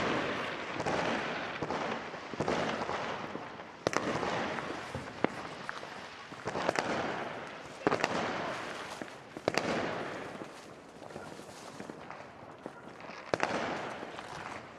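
Fireworks going off all around: sharp bangs every few seconds, each trailing off in an echo, over a continuous background of more distant crackling and banging.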